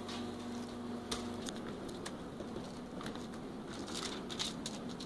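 Hands laying raw chicken breasts on a foil-lined baking sheet: scattered light crinkles and clicks of the aluminium foil and soft handling noises of the meat, busiest near the end. A steady low hum cuts off about one and a half seconds in.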